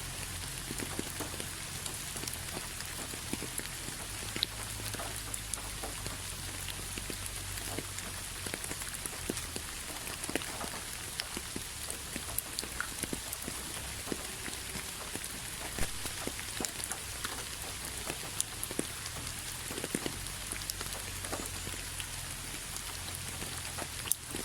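Steady rain falling on a hard surface, an even hiss with many separate drop impacts ticking through it and a low rumble underneath.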